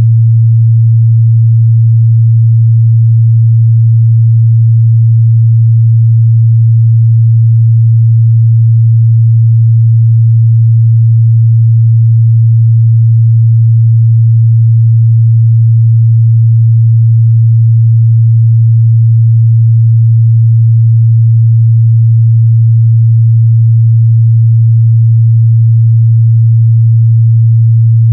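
A steady 114 Hz sine test tone, one low pure hum held at a constant loud level, used to check how speakers and headphones reproduce mid-bass.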